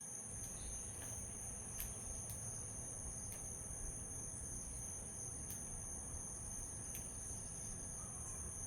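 Steady high-pitched insect chorus droning without a break, with a few short sharp ticks scattered through it over a low background rumble.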